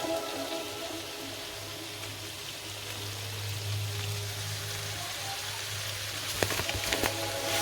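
Food sizzling in hot fat in a frying pan: a steady, even hiss, with a few sharp pops near the end.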